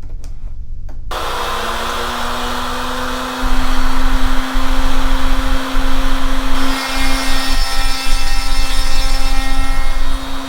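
Router in a horizontal router table switching on about a second in and running up to a steady hum. From about three and a half seconds in it is much louder and rougher as the solid carbide spiral upcut bit cuts the shoulder of a tenon, with the workpiece fed through on its edge.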